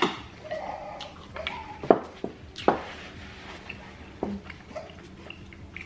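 Eating at the table: quiet chewing and mouth noises, with a few sharp clicks of utensils against glass bowls, the two loudest about two and two and a half seconds in.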